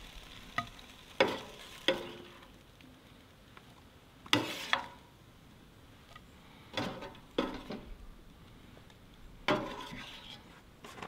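A serving spoon scraping and knocking against a frying pan and a cast iron camp oven as browned diced beef is scooped from one to the other, with about eight separate, irregularly spaced clacks. A faint sizzle comes from the hot pan underneath.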